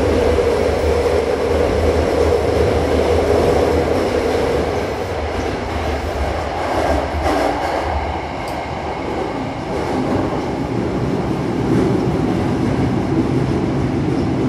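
Hankyu Kobe Line electric train running through a tunnel, heard from inside the passenger car: a steady rumble of wheels on rail.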